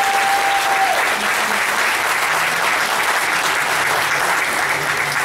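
Congregation applauding, a steady spell of clapping from many hands.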